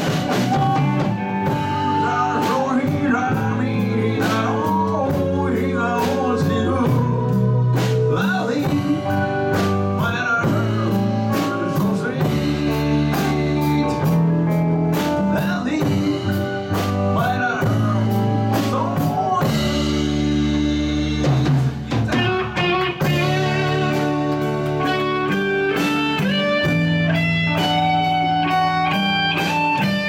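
Live band playing a song with drum kit, congas, electric guitars, bass and keyboards, and sung vocals over it. In the second half a quick melodic lead line of stepped notes stands out.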